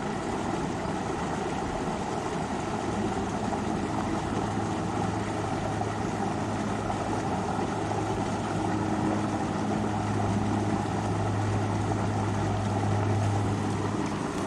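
River water rushing steadily over rocks, with a low, steady motor hum underneath that grows louder in the second half.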